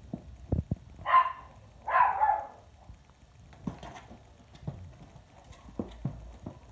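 Scratching and tapping on a cardboard box: soft knocks throughout, with two louder scratching scrapes about one and two seconds in.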